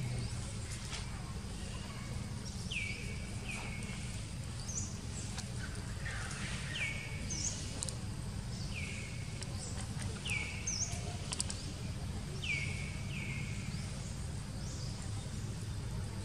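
A bird calling over and over: a short falling note, repeated about every two seconds and sometimes given twice in quick succession, over steady low outdoor background noise.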